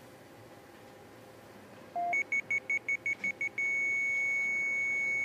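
Hospital patient monitor: about two seconds in, a brief lower tone, then a fast run of short high beeps, about five a second. At about three and a half seconds it goes into one unbroken high tone, the flatline alarm that signals no heartbeat.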